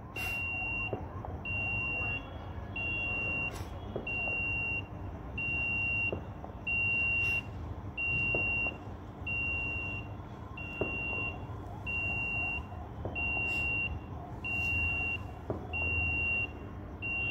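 HDPE pipe electrofusion welding machine beeping steadily, a high beep about once a second, while its timed fusion cycle runs.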